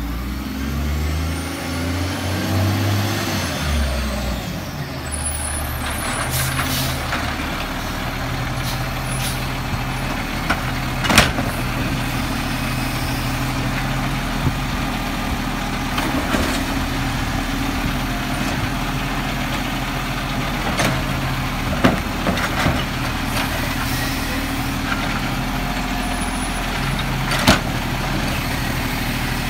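Mack MR side-loader garbage truck's diesel engine slowing as the truck pulls up and stops, with a hiss of air brakes, then running steadily while its automated arm works the carts. A few sharp clanks from the arm and the carts stand out over the engine.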